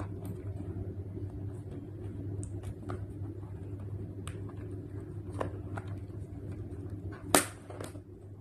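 Handling noises from a small cardboard phone box: scattered light clicks and taps, with one sharper tap about seven seconds in, over a steady low hum.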